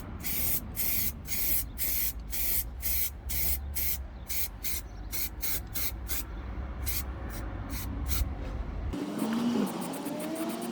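Anti-rust treatment being sprayed onto car bodywork in short, repeated hissing squirts, about two a second. About nine seconds in the spraying stops abruptly and a low hum with a sliding tone takes over.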